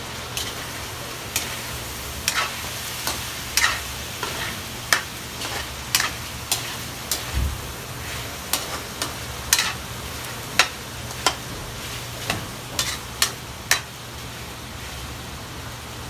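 A spatula scraping and knocking against a wok as chicken, potatoes and carrots are stirred, irregular clicks about once a second over a steady frying sizzle. The stirring stops near the end, leaving only the sizzle.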